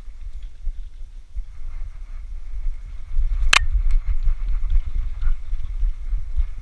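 Low, irregular thumping and rumbling of a dog's running steps and body movement, picked up by a camera strapped to its back, with one sharp click about three and a half seconds in.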